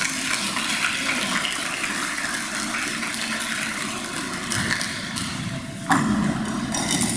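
Audience applauding, a steady crackle of many hands clapping that gets louder again about six seconds in.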